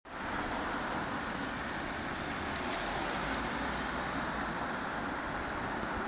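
Steady outdoor street ambience: an even hiss with no distinct events and no change in level.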